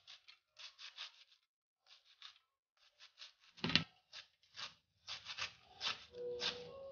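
Kitchen knife slicing a hand-held roll of collard greens (sukuma wiki) into thin shreds: quick, crisp cutting strokes in short runs of three or four, with one heavier knock a little past halfway.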